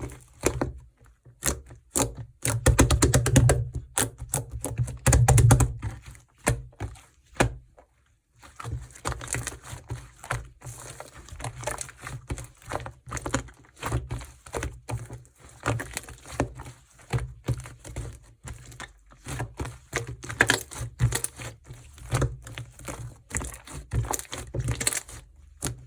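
Slime being squished and poked by hand, making many quick clicking pops of trapped air. A fast run of pops comes about three seconds in, and a louder burst about five seconds in.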